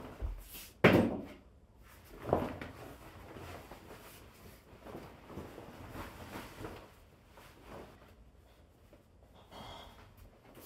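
A trench coat's fabric rustling as it is handled and swung on, with a soft thump about a second in and a lighter one a second later.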